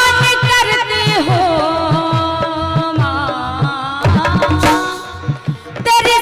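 Live Indian devotional folk music: harmonium melody over a steady dholak beat, with a woman's sung note held over the first second or so.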